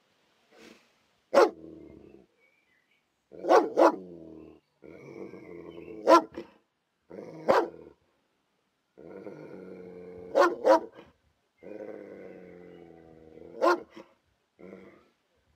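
A German Shepherd police dog barking aggressively and growling: about eight sharp barks, some single and some in quick pairs, with low, sustained growls in between.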